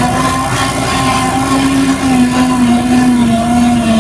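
John Deere 8600i self-propelled forage harvester running past at work: its engine and chopper give a loud, steady whine whose pitch dips slightly about three seconds in.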